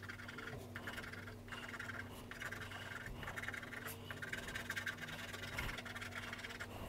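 A coin edge scratching off the foil coating of a paper scratch card in quick strokes, in several spells with short pauses between them.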